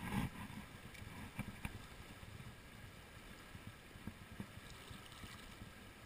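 Shallow mountain torrent rushing over stones, a faint steady wash, with low wind rumble on the microphone. A few soft knocks come in the first two seconds.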